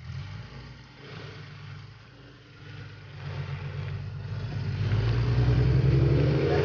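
Off-road rock-crawler buggy's engine working under load as it climbs over boulders, its note rising and getting louder toward the end.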